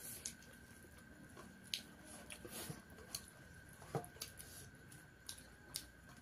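Quiet eating at the table: chewing and the small clicks and scrapes of fingers working rice on plates, scattered irregularly, the sharpest click about four seconds in. A faint steady high tone sits underneath.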